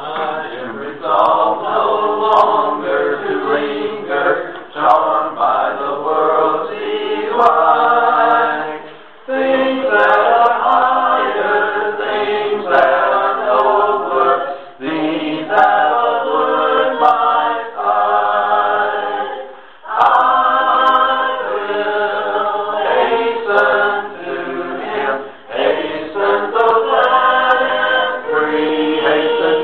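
A group of voices singing together in phrases, with short breaks between phrases every five or six seconds.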